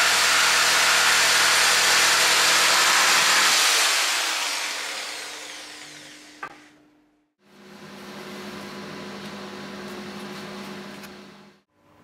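Electric jigsaw cutting through a wooden batten, running steadily for about four seconds, then dying away over the next few seconds. After a short break, a quieter steady hum.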